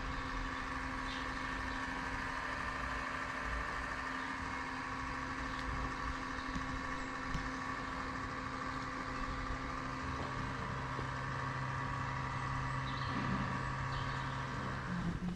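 Steady machine hum with a constant low drone and higher steady tones, unbroken throughout; the low drone drops out just before the end.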